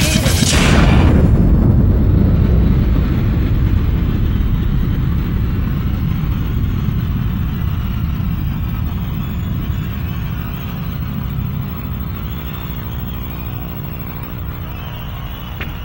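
The band's final chord cuts off in the first second. Then a large stadium crowd cheers and screams, a heavy low roar that slowly fades, with a faint steady held tone entering underneath about halfway through.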